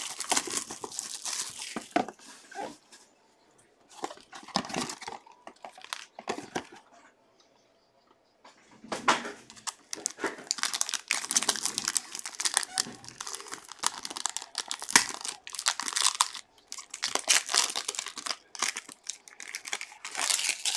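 Hands opening a box of trading cards and a foil card pack: plastic and foil wrapping crinkling and tearing in bursts, with a short lull about seven to eight seconds in.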